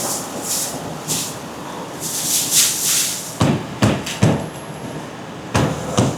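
Machinery giving a run of short, high hisses for about three seconds, then several sharp knocks.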